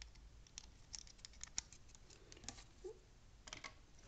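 Faint scattered clicks and taps as a wire's spade connector is handled and pushed onto a terminal of a car turn-signal flasher relay.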